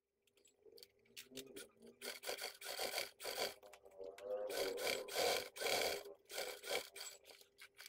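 Hands shifting and rubbing a stiff leather bag panel against the sewing machine's bed, making dense, irregular scraping and rustling strokes that grow busier about two seconds in. A faint steady hum runs underneath.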